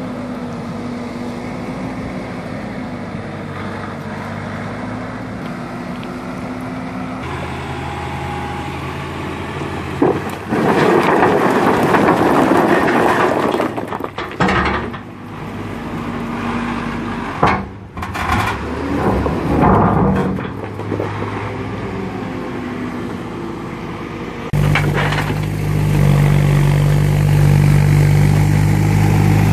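Backhoe loader's diesel engine running as it drives through a shallow stream. Then a loud clatter and rush of boulders tipped from the loader bucket into the water. Near the end, a louder, deeper engine runs as a forestry crane's grapple lifts a boulder.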